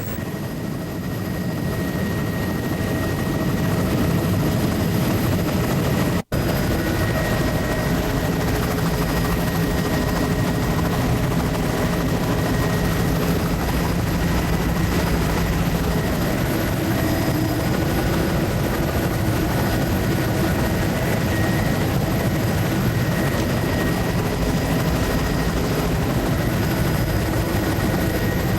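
Steady engine and airscrew drone of the low-flying survey aircraft, heard from on board, with several steady tones running through it. It swells over the first few seconds and cuts out for a split second about six seconds in.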